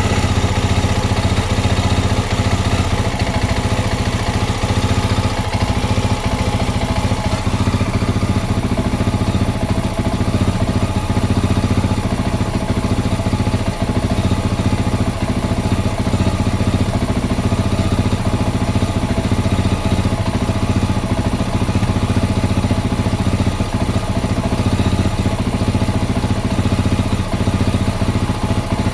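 Honda XR650L's single-cylinder four-stroke engine idling roughly, with an irregular spitting stutter breaking up its steady beat.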